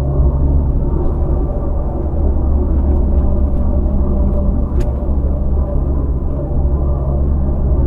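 Land Rover Freelander driving along a country road: a steady low rumble of engine and tyre noise. A brief sharp click sounds a little under five seconds in.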